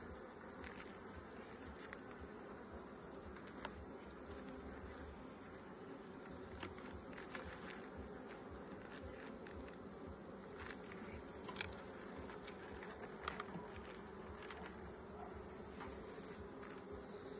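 Honeybees buzzing steadily around an open hive during a frame inspection, with a few light clicks.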